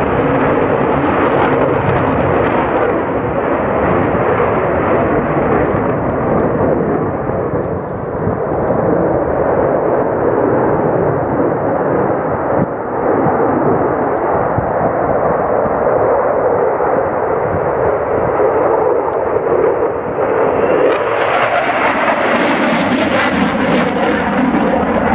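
Eurofighter Typhoon jet fighter's twin turbofan engines, a loud continuous jet noise as it flies its display. About four-fifths of the way through the sound turns harsher, with more hiss high up.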